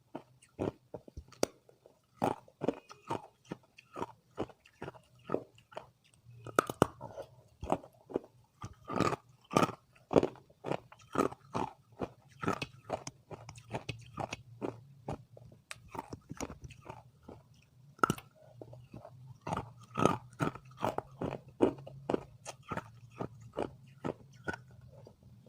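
A person biting and chewing hard ice close to the microphone: a steady run of sharp, crisp crunches, about two or three a second.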